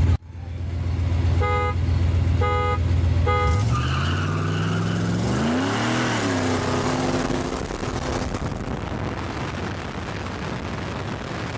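Street-race cars idling at the line, then three short horn toots about a second apart as the start signal. The engines then rev up hard as the cars launch, rising in pitch with a shift partway through, and the roar slowly eases as they pull away.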